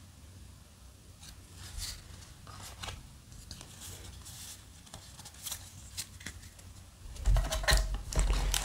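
Trading cards handled and slid against one another, with faint scattered clicks and swishes. About seven seconds in, louder rustling and low thumps as hands work in the cardboard booster box among the foil packs.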